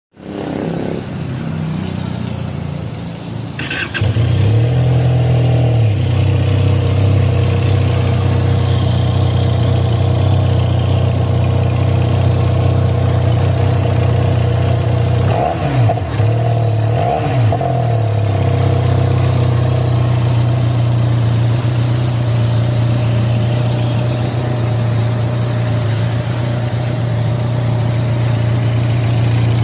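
QJ Motor SRK 400 parallel-twin motorcycle engine on its stock exhaust, stepping up into a steady idle about four seconds in. Around the middle it gives two short throttle blips, then settles back to idle.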